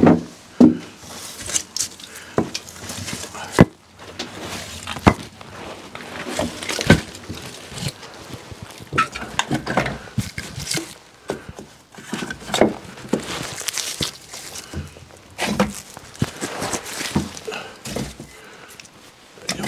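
Split firewood logs clunking and clattering as they are set one by one onto a woodpile: irregular sharp wooden knocks, a few seconds apart or in quick pairs, with rustling and shuffling between them.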